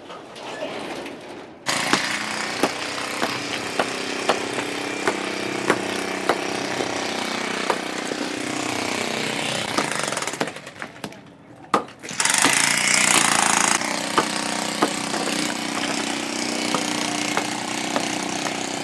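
Electric demolition hammer breaking up a concrete step, running steadily with sharp knocks through it. It starts about two seconds in, stops for about a second and a half near the middle, then starts again.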